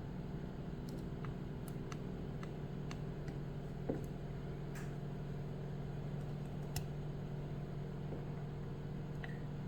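Faint, scattered small clicks of a lock pick working the sliders of an FTH Thirard Surveyor French pump lock under light tension, over a steady low hum.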